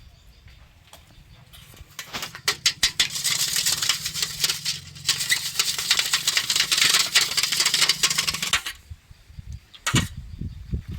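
Food frying in hot oil: loud sizzling and rapid crackling that starts about two seconds in and cuts off suddenly near the end.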